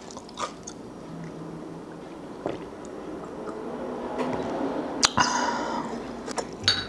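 A drink of somaek (soju mixed with beer) being swallowed from a glass, with soft wet mouth and liquid sounds, then a sharp knock with a brief ring about five seconds in.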